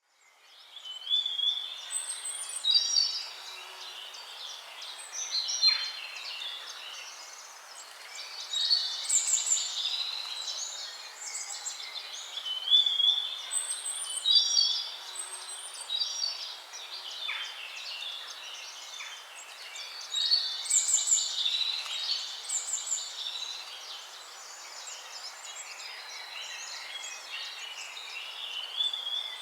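Several songbirds singing in overlapping, varied whistled and trilled phrases over a steady background hiss, fading in at the start.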